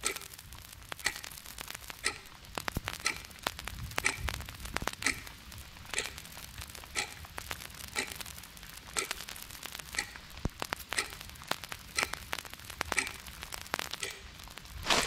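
Clock ticking, about one tick a second, each tick the same, over a faint crackling, rustling noise.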